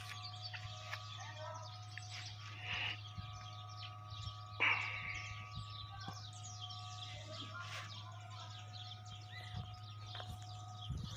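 Birds chirping and calling over a steady low hum.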